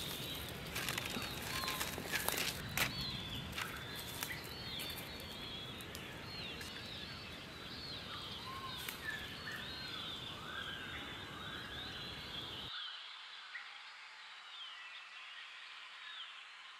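Woodland ambience with birds chirping: many short, repeated rising-and-falling notes over a steady outdoor background rush, with a few sharp crackles in the first three seconds. The low background rush cuts off suddenly about thirteen seconds in, leaving only the birds.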